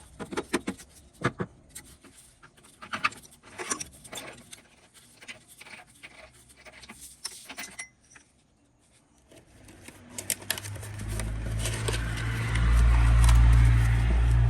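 Scattered metallic clicks and clatter, then after a short pause a BMW N63 twin-turbo V8 running steadily, growing louder over a few seconds to become the loudest sound.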